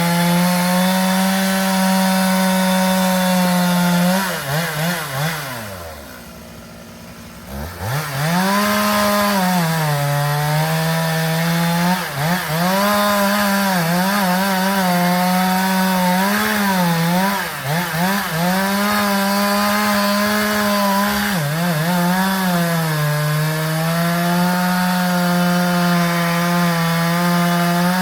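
Two-stroke chainsaw running at high revs and cutting into a tree, its pitch dipping and recovering as the chain loads in the wood. About five seconds in it drops almost to idle for a couple of seconds, then revs back up and keeps cutting.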